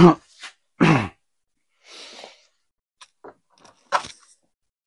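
A man's two short grunts and a breathy exhale, followed by a few light clicks and a sharper knock of hand tools being handled about four seconds in.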